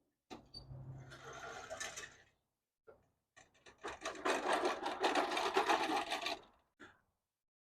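Rapid rattling and scraping of a gas push lawn mower being wheeled out, in two stretches, the second louder.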